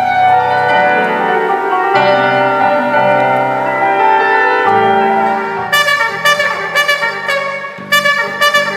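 Live band with a brass section and keyboard playing through the stage sound system: held chords, then from about six seconds in a run of short, punchy brass stabs, roughly three a second.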